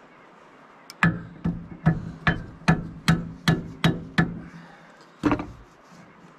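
Hammer blows on metal: a run of nine quick strikes, about two and a half a second, each with a short ring, then one more strike about a second later.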